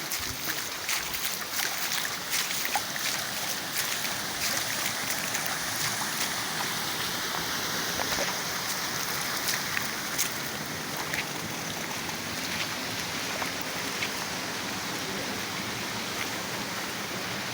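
Floodwater rushing in a swollen stream, a steady even rush with scattered faint ticks.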